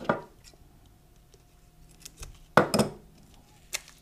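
Metal snips and chrome-plated parts being handled on a wooden workbench: a clunk at the start, a louder double clink a little under three seconds in, and a light click near the end.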